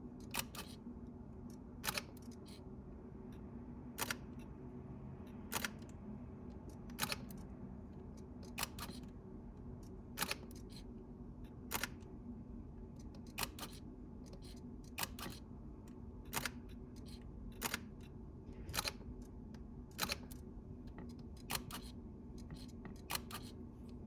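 Shutters of Fujifilm X-Pro1, X-Pro2 and X-Pro3 cameras fired one after another at 1/1000 s: a short sharp click about every second or two, some heard as a quick double click. A low steady hum runs underneath.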